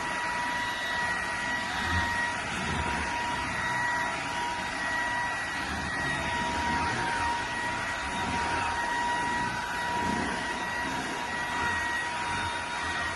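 Bissell PowerClean FurGuard cordless stick vacuum running steadily: a constant motor whine over a rushing hiss of air.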